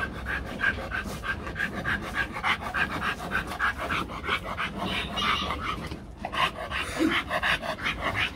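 Rottweiler panting hard with its mouth open, in an even rhythm of about three breaths a second.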